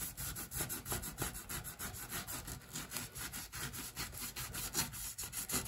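Norwex Spirisponge scrubber rubbed back and forth on a bathroom sink countertop, quick even scrubbing strokes, several a second, working off a ring stain.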